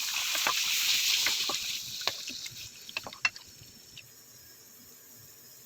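Water running from a kitchen tap into the sink, stopping about two seconds in, with several light clicks and knocks as things are handled in the sink.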